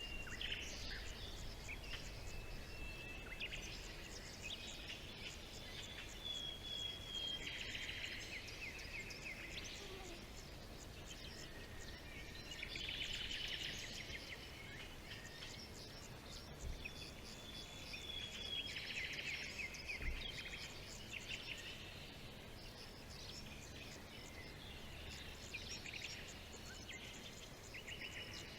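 Forest birdsong: thin whistled notes and short, rapid trilled phrases recurring every few seconds over a faint steady background hiss.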